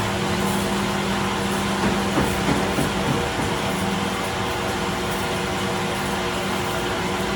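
A workshop machine running with a steady hum, with a few light knocks about two to three seconds in.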